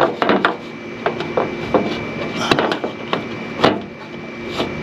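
Irregular clicks, knocks and rubbing of hard plastic, a few a second with louder knocks around the middle, as a new cab air-extractor (pressure-relief) vent is pushed and worked into its opening in a 2009 Chevrolet Silverado's body.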